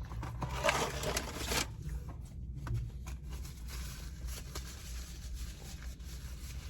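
Paper rustling and crinkling for the first second or two, then light scattered handling clicks over a steady low hum.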